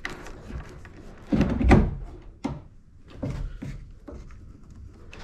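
Scattered knocks and clicks of hard plastic mounting parts being handled and fitted on a boat's metal side rail, with one heavy low thump about a second and a half in.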